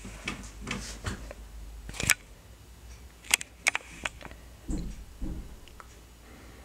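Scattered rustles and sharp little clicks, with two dull thumps a little past the middle, from a cat wrestling and kicking a plush toy on a fabric bedspread.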